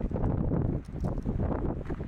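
Wind buffeting the microphone: an uneven rumble with crackling rustle that dips briefly a little before the middle.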